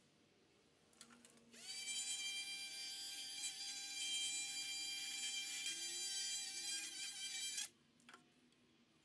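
Small handheld cordless grinding tool spinning up and running steadily for about six seconds with its bit in the bore of a pillow block bearing, grinding out an inner bore that is too small for the 1-inch tubing, then stopping. A light click comes just before it starts and a couple after it stops.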